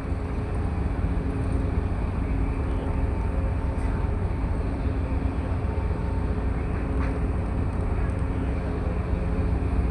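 Ship's engine running steadily: a deep rumble with a steady hum on top.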